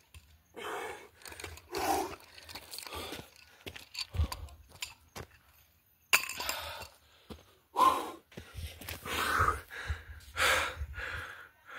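A man breathing hard in gasps and pants after a bout of nunchaku swinging, with a couple of sharp knocks as the phone is handled.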